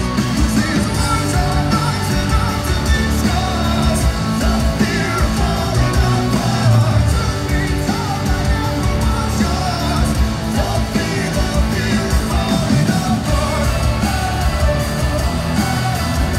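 Rock band playing live in an arena: electric guitars, bass and drums, with a lead vocal singing over them.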